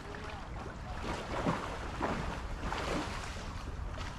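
River water rushing with wind buffeting the microphone as a steady low rumble, and a few brief splashing strokes between about one and three seconds in.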